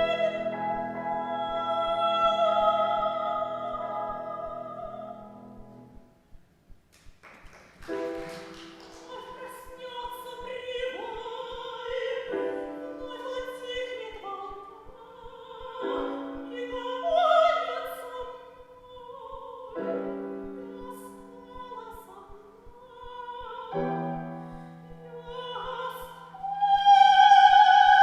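Soprano voice singing an operetta arioso with piano accompaniment. A long held note ends about six seconds in, followed by a brief pause; then piano chords and the voice resume, building to a loud high held note near the end.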